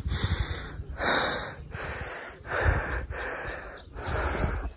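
A person breathing hard close to the microphone, a quick run of about six heavy breaths in and out, each under a second: out of breath after climbing to a high mountain top.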